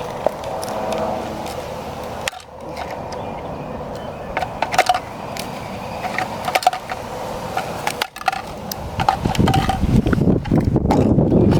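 Sharp clicks, snips and knocks of hand tools cutting and prying open an emptied metal spray paint can. A low rumble comes in near the end.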